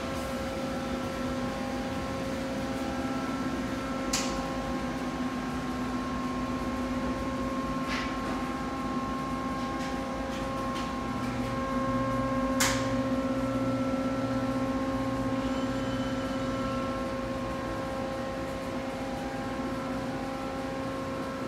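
Steady hum of a powered-up Mori Seiki SL-45 CNC turning center, holding a few steady tones, with three sharp clicks spaced a few seconds apart.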